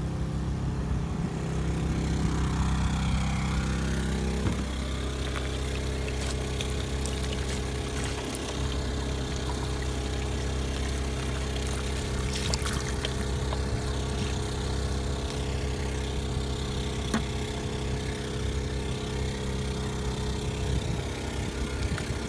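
An engine idling steadily, its pitch settling slightly lower about four and a half seconds in.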